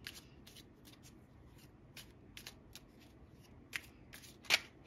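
Tarot cards being shuffled by hand: a run of short card flicks and taps, with two sharper snaps near the end.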